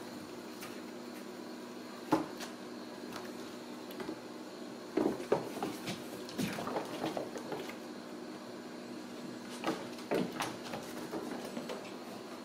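Ragdoll kittens at play, knocking and scraping against cardboard scratcher pads and a plastic toy on a tile floor: scattered thumps and scratchy scrapes, a sharp knock about two seconds in, a busier cluster around five to seven seconds and more near ten seconds, over a steady low hum.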